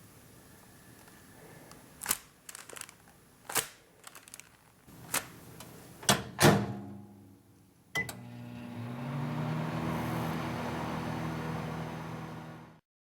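A series of clicks and knocks, then a microwave oven starts with a click and a short beep and runs with a steady hum, cut off abruptly near the end.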